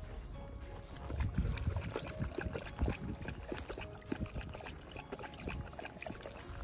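A golden retriever lapping water from a bowl: a fast, irregular run of wet laps starting about a second in.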